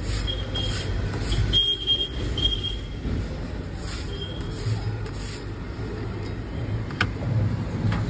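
Spatula scraping across a flat steel griddle in quick repeated strokes, about two a second, with a thin squeak on some strokes, as egg mixture is scraped up off the hot plate. The strokes pause for a second or so midway. Underneath is a steady low rumble, and two sharp clicks come near the end.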